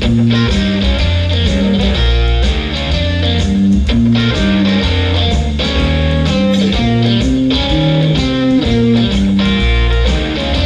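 Guitar music with a strong bass line, in a steady rhythm.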